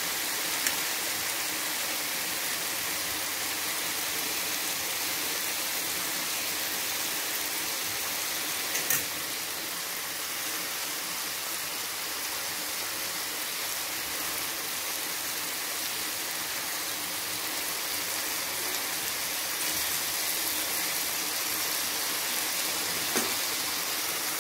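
Chicken and tomato masala with freshly added yogurt sizzling steadily in oil on a tawa, with a few sharp pops about a second in, near the middle and near the end.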